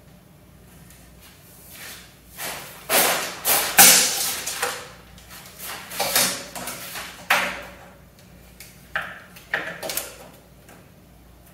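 Steel tape measure pulled out and worked along a shelf board: a run of scraping, rattling bursts for about five seconds, then a few shorter ones near the end.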